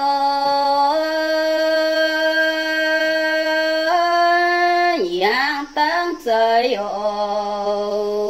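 A woman singing alone in the Red Dao (Iu Mien) language, a traditional folk song. She holds long notes, steps up in pitch about a second in and again near four seconds, then swoops down and back up about five seconds in.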